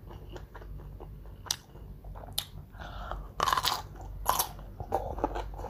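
Close-up chewing and crunching of raw vegetables, a run of small crackly crunches with a few louder, sharper crunches about three and a half and four and a half seconds in.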